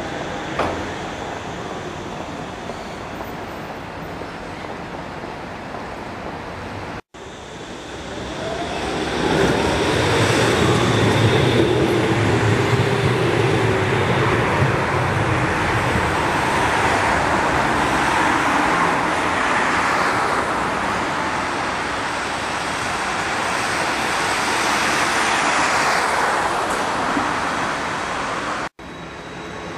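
Street traffic noise, then after a cut a tram drawing up and running past with a rising whine. The rumble is loudest in the middle and eases off near the end.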